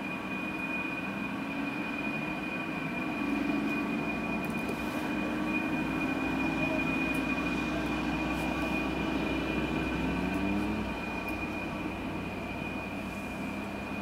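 A low mechanical drone like a distant engine, swelling louder through the middle, then dropping in pitch and fading about ten and a half seconds in, over a constant high thin whine.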